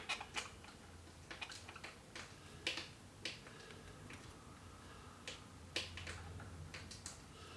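Scattered light clicks and ticks of small metal parts being worked by hand while the rocker stud is fitted into the needle bar rocker arm of a Singer 348 sewing machine, over a faint low hum.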